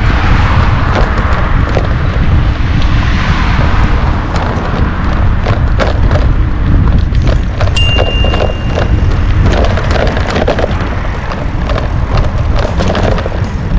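Wind buffeting the microphone of a camera on a moving bicycle, with frequent small rattles and knocks from the bike going over bumps. A brief high-pitched tone sounds for about a second, about eight seconds in.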